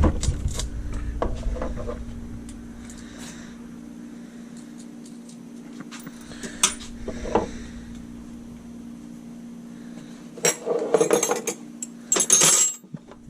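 Metal clinking and rattling from handling parts, with low bumps at the start and a jangling clatter near the end like keys being handled; a steady low hum underneath.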